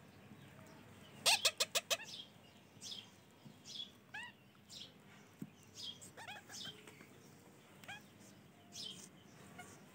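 Baby ringneck parakeets calling: a quick run of five sharp, rising chirps about a second in, the loudest part, then scattered single rising chirps.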